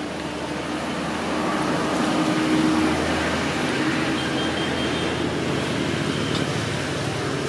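Steady rushing noise of road traffic with a faint engine hum, swelling about two to three seconds in as a vehicle passes, then easing off.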